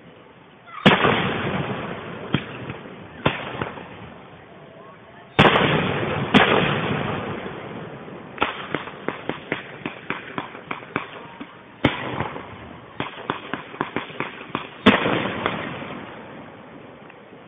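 Fireworks display: five loud shell bursts, each trailing off in a fading rumble, with two runs of rapid crackling pops in between.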